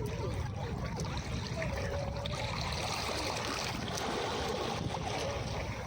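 Calm sea waves washing and trickling on a beach, with a low rumble under it and a swell of hiss about halfway through.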